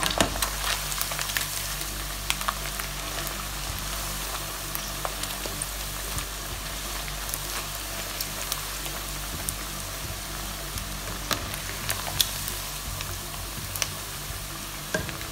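Chicken skins deep-frying in their own rendered fat: a steady sizzle with scattered sharp pops, during the final fry that crisps them up.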